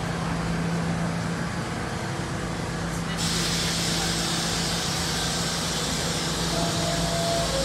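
R68A subway train standing at the platform with its doors open: a steady low hum from the cars, then about three seconds in a loud hiss starts and carries on. A short tone sounds near the end.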